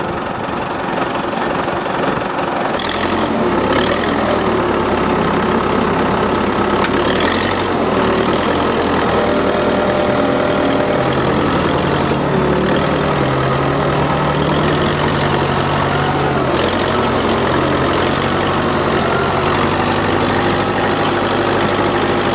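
Vehicle engine running steadily throughout, its pitch stepping up a little about halfway through.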